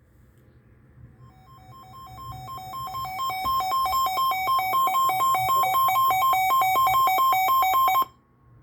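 Weather radio alert alarm: a two-tone beeping warble, alternating high and low about three times a second. It grows louder over the first few seconds, holds steady, then cuts off abruptly. The alarm signals an incoming weather warning.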